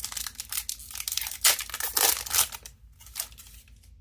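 A Magic: The Gathering play booster pack's wrapper being torn open and crinkled, a dense run of sharp crackling that thins out about two and a half seconds in.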